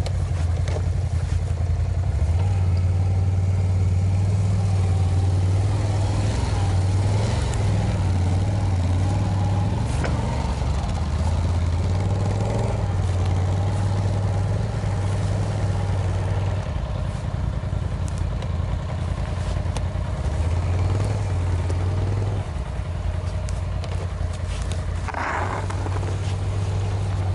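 ATV (quad bike) engine running under load while ploughing through deep snow, its note rising and falling with the throttle.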